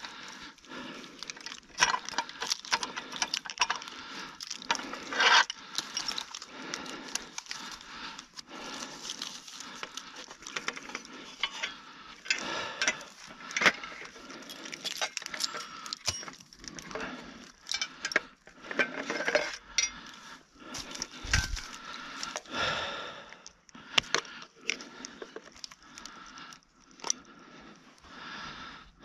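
Hands working at a trail camera strapped to a tree: irregular clicks and clinks of keys, the cable lock and the camera's plastic case and latches, mixed with rustling of dry leaves and twigs.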